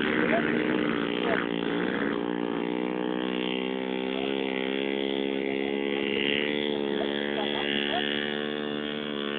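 Motorcycle engine running at a fairly steady speed, its pitch wavering only slightly.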